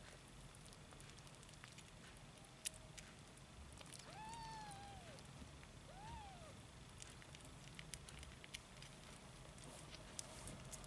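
A nursing kitten mewing twice, high and thin, each call rising then falling in pitch, about four seconds in and again about two seconds later, the first call longer. Faint scattered clicks throughout.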